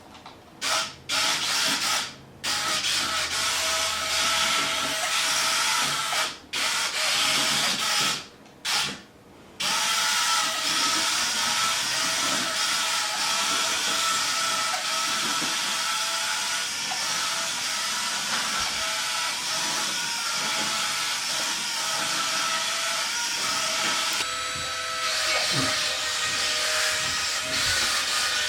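Tonor wall-climbing RC car's suction fan running with a loud hiss and a steady whine, switched on and off several times in the first ten seconds, then running without a break.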